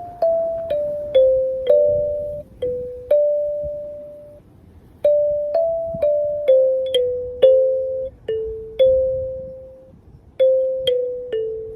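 Kalimba playing a slow melody of single plucked notes, each one ringing and fading, in phrases with short pauses between them.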